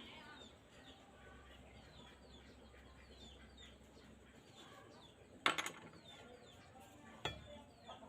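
Birds chirping faintly in the background with many short, falling chirps. Two sharp knocks stand out, about five and a half seconds in and again near seven seconds.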